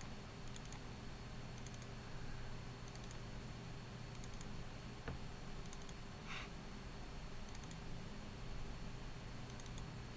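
Computer mouse button clicking in short paired clicks every second or so, over a steady low electrical hum. One sharper click and a brief louder noise come a little past the middle.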